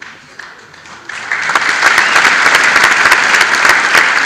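Audience applause for a live stage comedy performance. It starts about a second in and builds quickly to steady, dense clapping.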